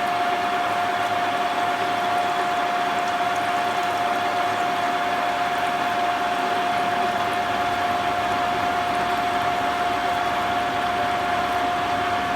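A machine running steadily, a constant whine over an even mechanical noise with no change in speed.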